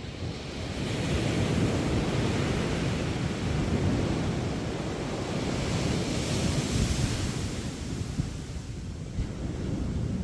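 Sea waves breaking and washing up a sandy beach: the surf swells about a second in, hisses loudest around the middle as the wash runs up, then eases off.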